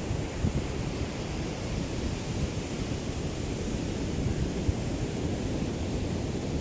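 Gentle sea waves lapping on a shore, a steady wash of water, with a light breeze rumbling on the microphone.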